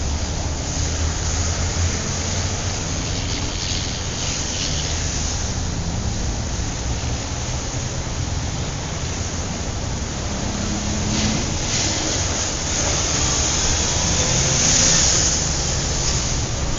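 City street traffic: a steady low rumble of engines with the hiss of tyres swelling as vehicles pass, most noticeably about four, eleven and fifteen seconds in.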